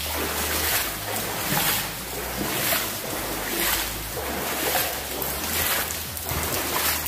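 Footsteps wading through standing water, with a slosh and splash at each stride, about one a second.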